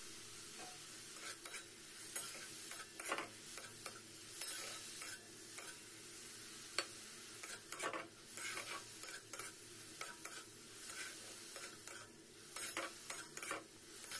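A metal spatula stirring grated carrots in ghee in a metal kadai, with irregular scrapes and taps against the pan over a faint sizzle. This is the stage where the carrots' extra water is being cooked off.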